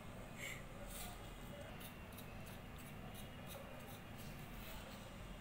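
Faint, irregular scratchy rustling of fingers rubbing and crumbling puttu flour in a small bowl.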